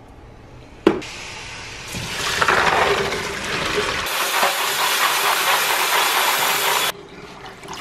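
Kitchen faucet running in a steady rush as soaked beans are rinsed. It starts a couple of seconds in, after a single click, and cuts off sharply near the end.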